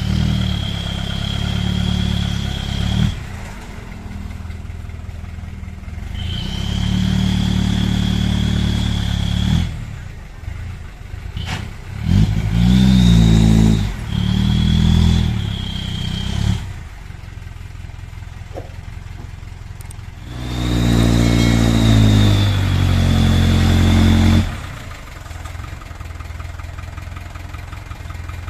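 Hino Dutro dump truck's turbo diesel engine revved hard again and again in bursts of a few seconds, with a high whine over each rev, dropping back to idle between them. The loaded truck is trying to pull its wheels out of soft ground it has sunk into.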